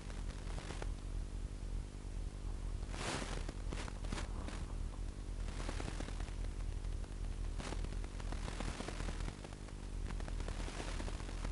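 Steady hiss and low electrical hum from a small wearable camera's microphone, broken a handful of times by brief rustles of clothing and leaves as the wearer shifts in the undergrowth.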